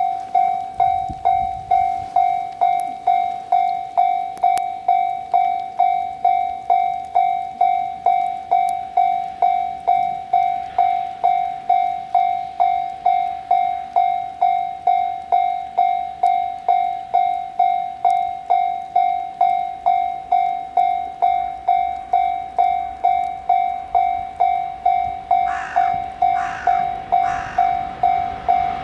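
Japanese railway level-crossing warning alarm ringing steadily, about two strokes a second. Near the end, a few short higher-pitched sounds and the rising noise of an approaching train join in.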